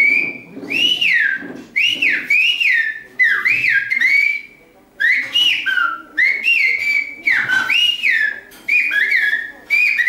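Silbo Gomero, the whistled language of La Gomera, whistled with fingers in the mouth: a string of loud whistled phrases, each a second or less, gliding up and down in pitch, with a short pause about halfway through.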